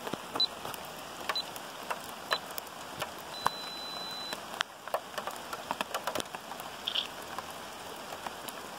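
Steady rain falling, with raindrops ticking irregularly on hard surfaces close to the microphone.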